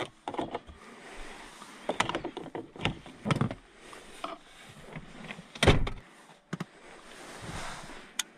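Handling noises inside a car: a string of clicks and knocks from plastic trim and a handheld work lamp, with rustling between them and one heavier thump about five and a half seconds in.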